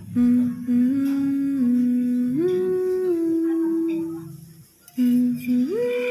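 A woman humming a simple tune with her mouth closed, moving between a few held notes, in two phrases with a short pause about four seconds in.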